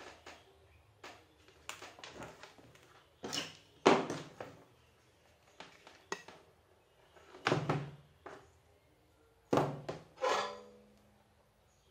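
Handling noise at a workbench: scattered knocks and clatters of tools and cable being picked up, moved and set down, with the loudest a sharp knock about four seconds in.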